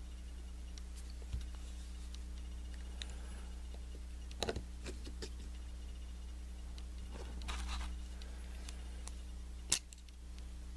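Occasional faint clicks and scrapes of a Kwikset knob lock cylinder being handled and taken apart, over a steady low hum.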